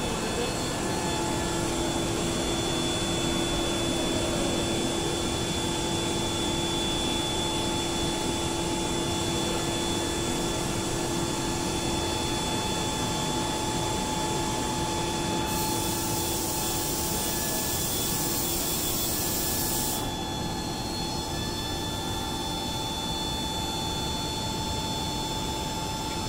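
Boeing 777-200ER trailing-edge flap drive running as the flaps extend: a steady mechanical whine with several fixed tones. A louder high hiss joins for about four seconds past the middle, then drops away.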